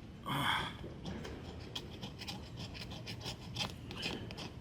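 Pocket knife scraping and picking at a sticker on a hollow plastic skeleton head: a series of small scrapes and clicks, with one louder rush of scraping noise about half a second in.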